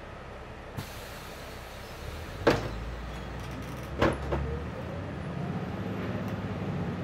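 City bus heard from inside while riding: a steady engine and road rumble, broken by two sharp thuds about a second and a half apart. After them the engine's pitch slowly rises as the bus picks up speed.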